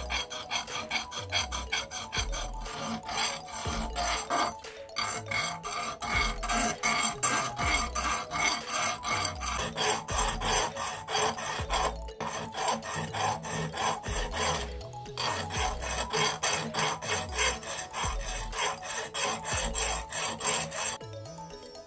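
Steel hand file rasping back and forth on an iron knuckle duster in quick, even strokes, with a few brief pauses. The filing stops near the end.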